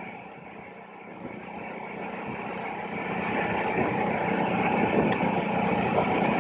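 Engine of a rice transplanter running steadily, growing louder over the first few seconds and then holding level.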